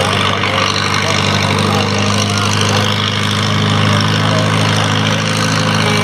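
Farm pulling tractor's engine idling steadily as the tractor creeps forward at low throttle.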